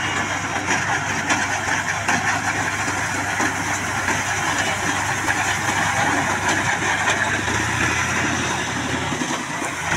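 Tractor engine running steadily: a low, even hum under a dense mechanical clatter.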